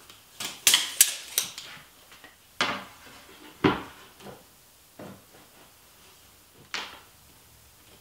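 Clatter and knocks of tools being handled on a thin aluminum sheet on a workbench. A quick run of rattling clicks comes early, then four separate knocks, one of them heavy, as a tape measure and a straightedge are put down and moved on the sheet.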